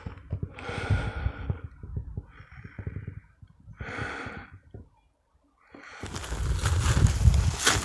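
A snowshoeing hiker breathing hard, three audible breaths, over faint steps. From about six seconds in, louder crunching of snowshoe steps in snow.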